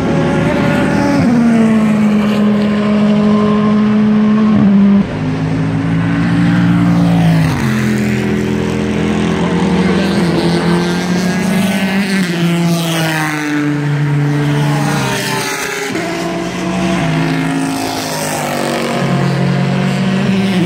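Endurance race cars' engines going by one after another, loud throughout. Their notes glide down and jump back up in pitch several times as the cars pass and shift gear.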